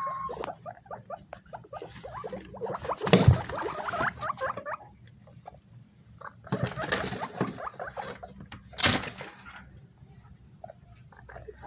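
Several guinea pigs squeaking in rapid short calls while scrambling over banana pieces, with scuffling and two sharp knocks, about three seconds in and, loudest, about nine seconds in.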